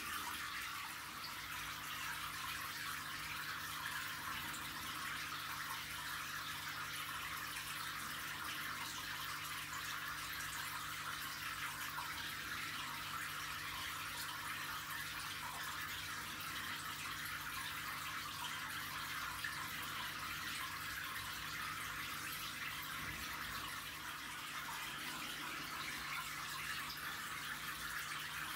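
Steady running and trickling of aquarium water with a faint, even hum underneath.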